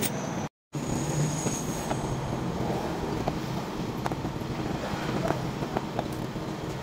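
Steady workshop background noise with a few faint clicks, as a paintless-dent-repair glue-pull mini lifter is squeezed on a glue tab.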